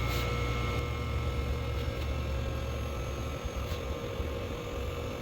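Electric hydraulic pump motor of a vehicle lift running with a steady hum, raising a pickup truck.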